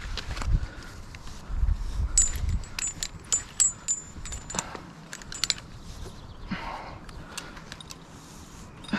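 Metal climbing hardware clinking and jingling as it is handled on the rope, with a quick run of ringing clinks from about two seconds in and a low rumble of handling underneath. It goes quieter after about six seconds, leaving faint rustling.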